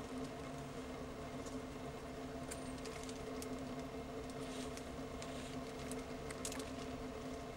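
A steady low hum made of several tones, with a few faint scattered clicks.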